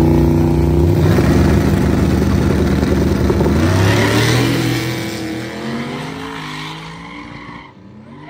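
Small-tire drag race car engines running at full throttle. Loud with shifting pitch for the first few seconds, then fading steadily as the cars pull away down the track.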